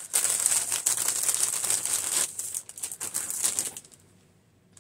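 Cellophane bags crinkling and rustling as they are handled, stopping about four seconds in.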